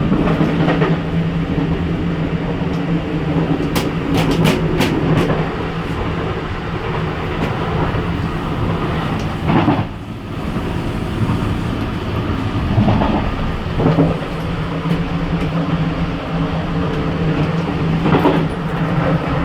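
Taiwan Railways EMU900 electric multiple unit running at speed, heard from inside the gangway connection between two cars: a loud, steady rumble of wheels on rail with a constant low hum, a few sharp clicks about four to five seconds in, and a brief swell then dip in the noise around the middle.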